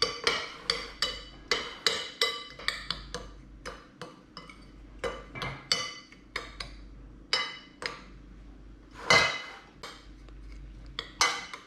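A utensil clinking and scraping against a bowl while stirring a dry breading mix, with quick repeated taps, several a second at first and sparser later, and one louder clink about nine seconds in.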